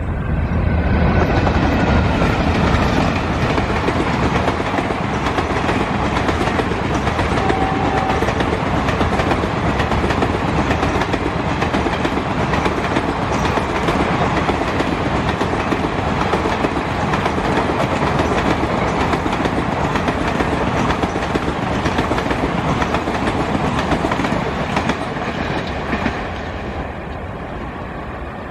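Twin ALCO diesel locomotives passing with their engines running, followed by a long rake of passenger coaches rolling by, wheels clattering over rail joints. The clatter drops away about two seconds before the end as the last coach goes past.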